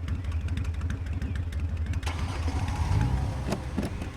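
A motor vehicle engine running with a low, pulsing rumble. About halfway in, a higher whine joins it and the sound grows a little louder.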